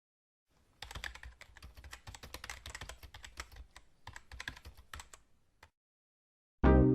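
Rapid clicking of typing on a computer keyboard, with a brief pause about four seconds in. Music with struck, decaying notes starts near the end.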